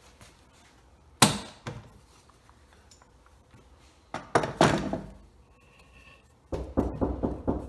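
A heavy black walnut workpiece knocked and set down on a wooden workbench: one sharp thunk about a second in, a couple more about four seconds in, then a quick run of lighter knocks near the end.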